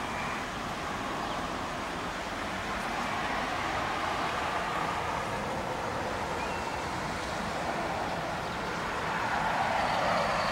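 Steady hiss of road traffic from passing cars, swelling about nine seconds in as a vehicle passes closer, with a few faint high chirps.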